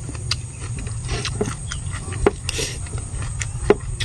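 A person chewing crispy fried rat and rice close to the microphone: irregular sharp crunches and clicks, the loudest a little past two seconds in and near the end, over a steady low rumble.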